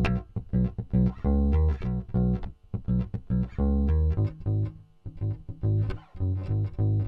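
Junior JB100 Jazz Bass–style electric bass played fingerstyle on its neck pickup alone, tone knob fully open: a running line of plucked low notes with a couple of short breaks.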